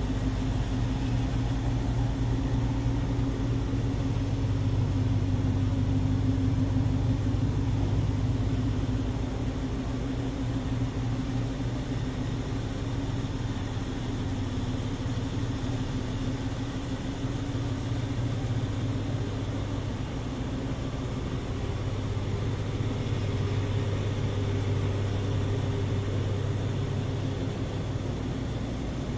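BMW X5 50i's 4.4-litre twin-turbo V8 idling steadily, a little louder for the first several seconds before settling.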